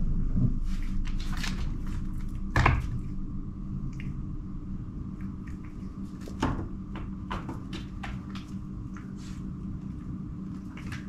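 A cat playing on a hardwood floor: scattered soft thumps and taps of its paws and body as it pounces and bats at something, the loudest thump about two and a half seconds in and another about six and a half seconds in, over a faint steady hum.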